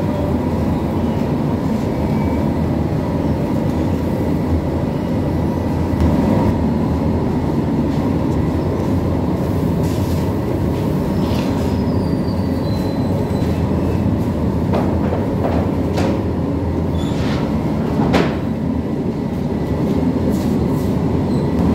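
Belt-driven bakery dough mixer running with a steady rumble and hum, as flour is tipped into its steel bowl. A few sharp knocks sound in the last third.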